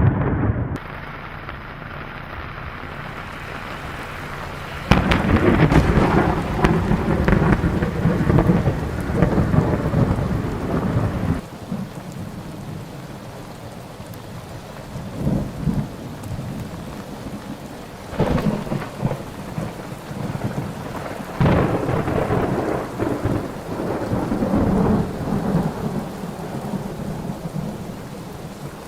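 Thunderstorm: steady rain with rolls of thunder. A long, loud roll of several seconds comes about five seconds in, and shorter rumbles follow over the rain later on.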